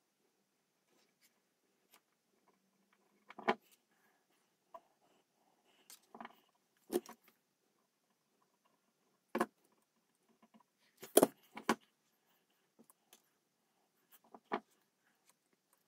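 Light clicks, taps and clinks of small tools and parts being handled during bench soldering work on a small step-down converter board. They come sporadically, a few seconds apart, and the loudest knock is about eleven seconds in.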